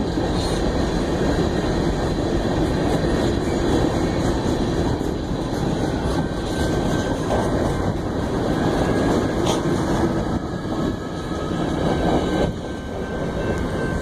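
Freight train cars rolling past at close range: a steady rumble with the clatter of wheels on the rails, easing off near the end as the last cars go by.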